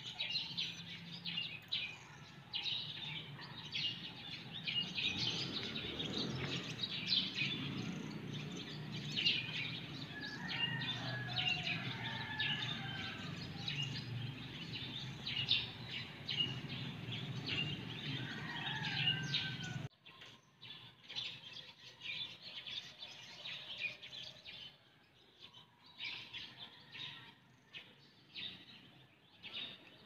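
A flock of swallows twittering from power lines: many short, quick chirps overlapping, dense for the first two-thirds and sparser after. A steady low rumble runs under them and cuts off suddenly about twenty seconds in.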